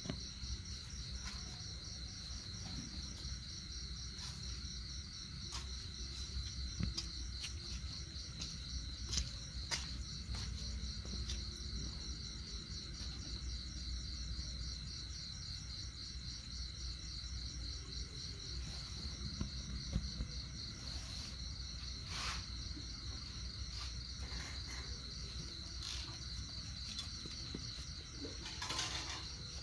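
Crickets chirping in a steady, rapidly pulsing high trill, with a few scattered short clicks and taps.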